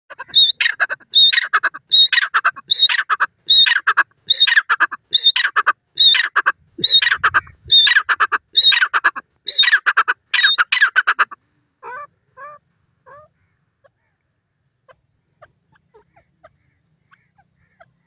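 Grey francolin (teetar) calling: a loud, harsh call repeated about once a second for some eleven seconds, then three fainter calls, then only faint scattered chirps.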